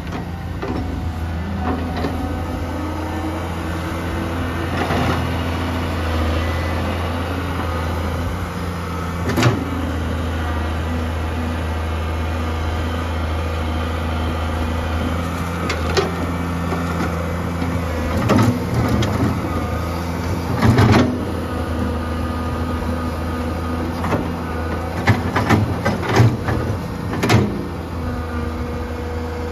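1987 Komatsu PC200-3 excavator's diesel engine running steadily under load as the bucket digs and scrapes the ground. Sharp knocks and clanks from the bucket and boom linkage come several times, most often in the second half.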